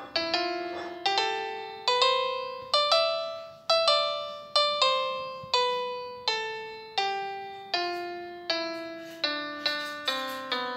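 Background music: a slow piano melody of single notes, each struck and fading, about one a second, coming quicker near the end.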